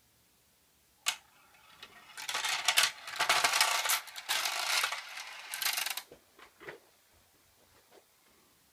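Arrow rolling-ball clock tripping its rails. A single click about a second in is followed by metal balls clattering and rolling down the tracks for about four seconds as the minute and hour rails dump their balls. A few scattered clicks follow as the last balls settle.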